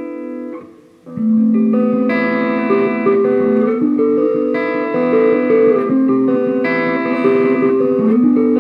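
Gibson Les Paul Custom electric guitar played through a Bugera V5 tube amp on a crunch setting. A held chord rings out and fades, then about a second in a new run of chords and single notes starts.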